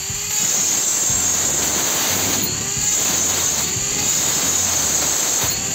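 High-speed rotary tool with a pointed bit grinding through metal between a ring of drilled holes, running with a steady high whine. Background music with a bass line plays underneath.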